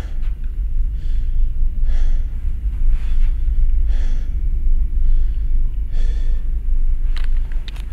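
Heavy breathing close to the microphone, a breath every second or two, over a loud steady low rumble, with two sharp clicks near the end.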